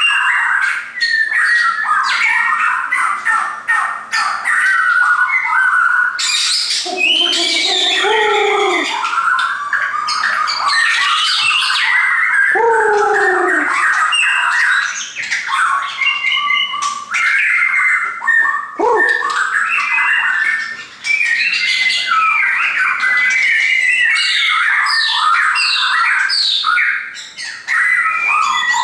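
Caged shamas singing almost without a break: a rich, varied run of whistled and chattering song phrases, with a few lower, downward-sliding notes about 7, 13 and 19 seconds in.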